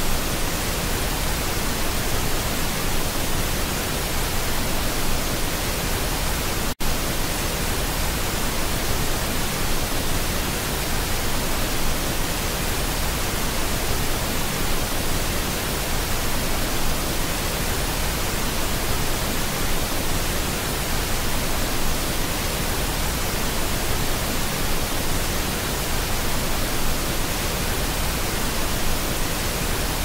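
Waterfall rushing: a steady, even roar of falling water that cuts out for an instant about seven seconds in, like a splice in the recording.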